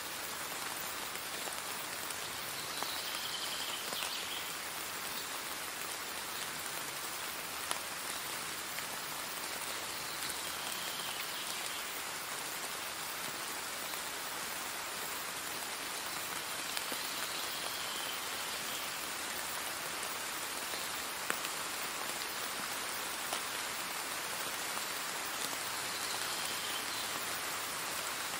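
Steady rain, an even hiss with scattered faint drop ticks. A faint higher sound recurs about every seven seconds.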